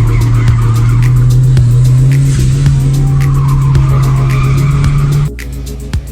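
Car engine running hard at high revs on a race track, its note climbing slowly, with tyres squealing at times; about five seconds in the engine note suddenly drops as the throttle is lifted.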